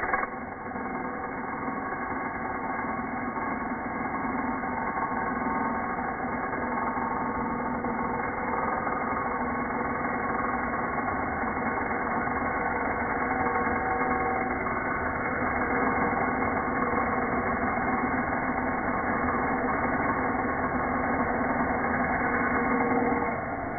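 Bosch angle grinder's abrasive disc cutting through a steel pipe, heard slowed down with the slow-motion footage: a steady, dull, low grinding drone with shifting tones.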